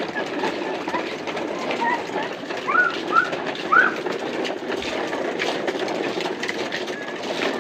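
Plastic toy dump truck dragged by a string over a rough asphalt lane, its wheels rolling with a steady rattling rumble. A few short rising chirps stand out about three seconds in.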